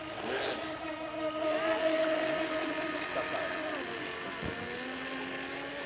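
MMP Shark electric RC speedboat running at speed on its 3200KV brushless motor and 2S LiPo: a steady motor whine.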